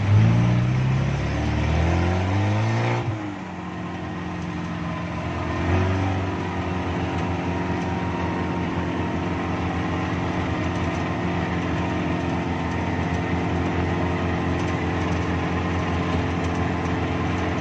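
Suzuki Jimny 4x4 engine revving, its pitch climbing for about three seconds before dropping suddenly, rising briefly again about six seconds in, then running at a steady speed.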